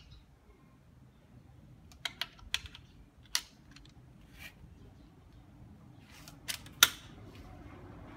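Sharp metallic clicks and clacks, about seven in all, from loading a Sumatra .25 PCP air rifle: the rotary pellet magazine being handled and seated in the receiver and the action worked. The loudest clack comes near the end.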